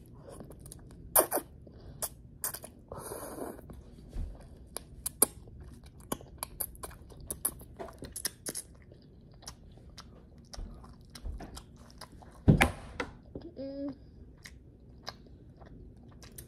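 Person chewing a mouthful of instant ramen noodles close to the microphone, with many small wet mouth clicks. There is a short rush of noise about three seconds in and one louder knock about twelve seconds in.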